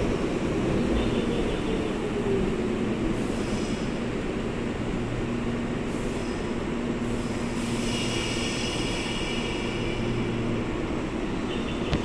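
Meitetsu 6000 series electric train standing at the platform with its doors shut, its equipment giving a steady hum, then starting to pull away near the end.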